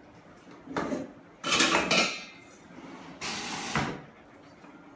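Pots and pans clattering and scraping as they are rummaged through and pulled out of a low kitchen cabinet: three bursts, about a second in, at about one and a half seconds (the loudest) and a little after three seconds.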